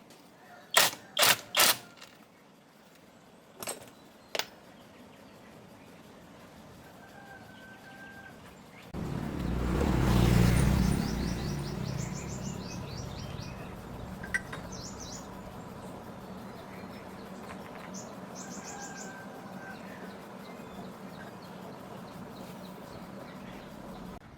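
Three sharp knocks in quick succession, two more a couple of seconds later, then a low rumble that starts suddenly about nine seconds in, swells and slowly fades. Birds chirp in short trills through the second half.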